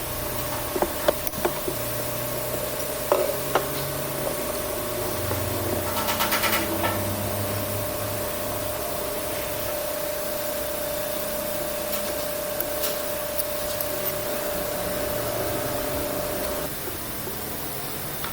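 Hand work on metal pump parts: rubbing and scraping, with a few sharp knocks and a brief rattle about six seconds in. Over it runs a steady hum that stops near the end.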